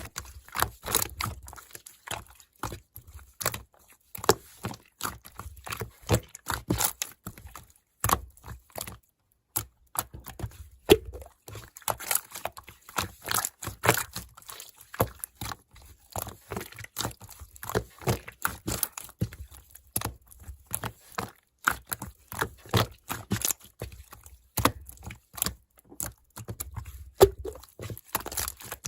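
Slime being squeezed and worked by hand, giving dense, irregular sticky clicks and crackling pops.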